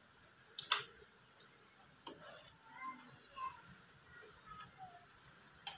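Small clicks and taps of wires and a metal switch assembly being handled inside an opened juicer-blender, with one sharp click about a second in and a few fainter short squeaks later.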